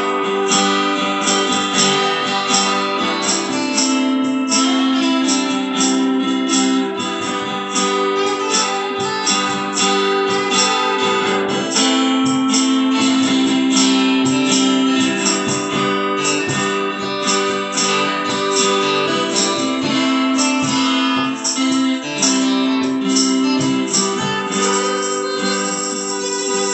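Two acoustic guitars playing an instrumental passage together, with hand percussion keeping a steady beat of short strokes.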